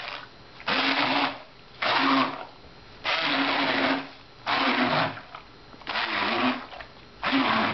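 Electric blender run in short pulses, about one burst every second or so, each lasting half a second to a second, as it works a thick mixture of cubed tofu, fresh herbs and seasonings into a paste.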